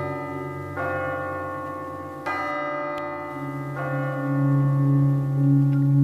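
Ambient background music: a bell-like note struck about every second and a half, each ringing and fading, over a steady low drone.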